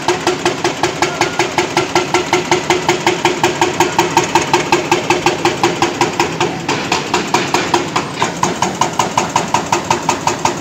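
Excavator-mounted hydraulic breaker hammering reinforced concrete: a steady, rapid pounding of about four blows a second.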